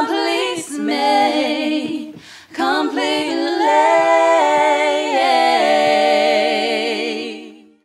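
Women's voices singing a cappella in harmony, closing the song on a long held chord with vibrato that fades out at the very end.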